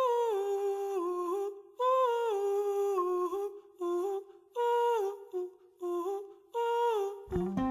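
Opening of a soundtrack song: an unaccompanied, wordless humming vocal in a series of short phrases, each sliding down in pitch. The backing instruments come in near the end.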